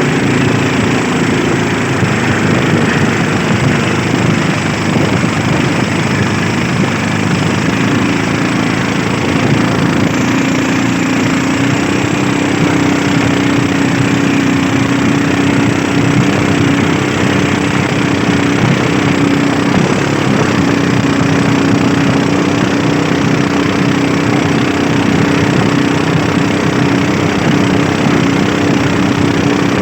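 Small fishing boat's engine running steadily under way. Its note steps up a little about ten seconds in.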